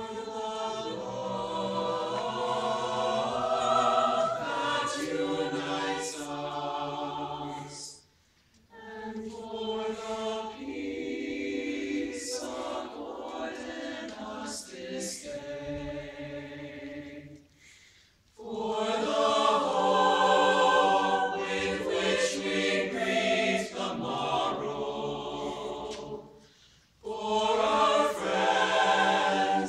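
Mixed high-school choir of sixteen voices singing in parts, holding long chords. The singing breaks off briefly three times between phrases.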